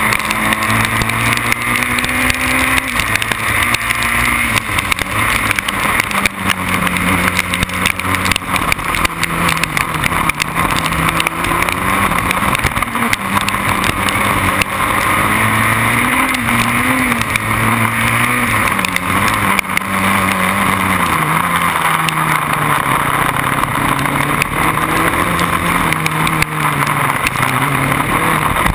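Formula BMW single-seater's engine heard onboard at racing speed, its pitch climbing and dropping again and again through gear changes and braking, over a steady rushing noise.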